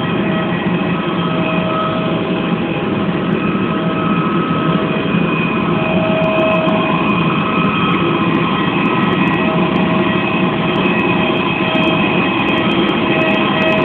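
Jet airliner noise on the apron: a loud, steady rush with a high, steady whine over it, growing a little louder about five seconds in.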